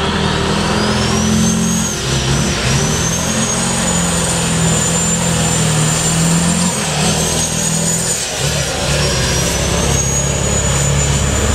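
Scania R500 truck's V8 diesel pulling hard under full load, hauling a full trailer of logs up a hill. A high whistle climbs in pitch over the first couple of seconds over the deep engine note, and both break briefly about two seconds in and again around seven and eight seconds in.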